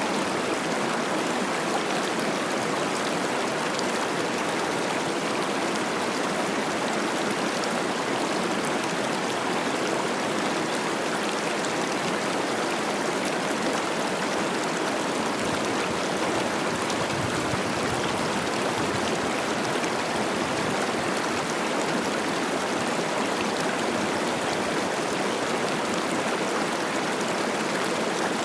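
Mountain river running high with spring snowmelt: a steady rush of babbling, tumbling water with no breaks.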